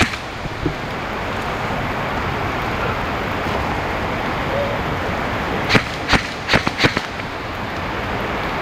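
Airsoft guns firing: a quick run of four sharp cracks about six seconds in, each roughly a third of a second apart, over a steady outdoor hiss.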